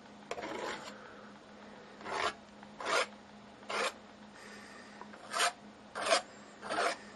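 Paintbrush stroking across a stretched canvas in short scratchy strokes, about one a second, as acrylic paint is worked in.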